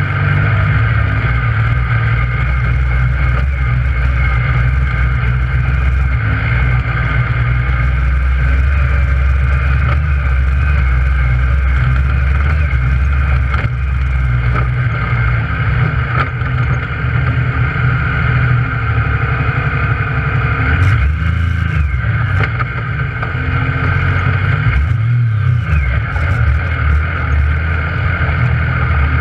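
Yamaha YXZ1000R side-by-side's three-cylinder engine running under load on a trail, heard from inside the cab, its note dipping briefly twice in the last third.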